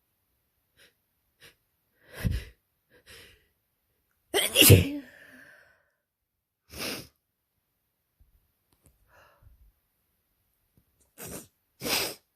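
A person sneezing again and again in an allergy sneezing fit, a run of separate sneezes with smaller sounds between them. The loudest sneeze comes about four and a half seconds in, and two more come close together near the end.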